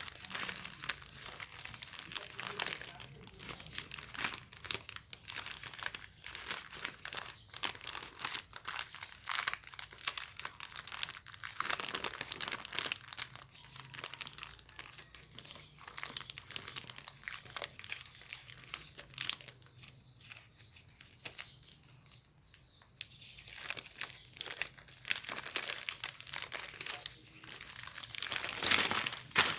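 Chocolate wrappers crinkling and crackling as chocolates are handled and unwrapped, with some tearing, in irregular bursts; a louder burst of crinkling near the end.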